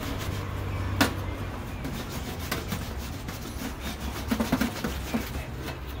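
Scrubbing baked-on grease off the plates of a Bundok Lotus flat-pack fire pit: a steady rubbing and scraping, with a sharp clack about a second in and a few quicker knocks later on.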